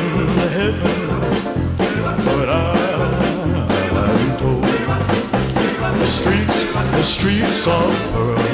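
Upbeat rock and roll music with a brisk, steady drum beat and a bass line.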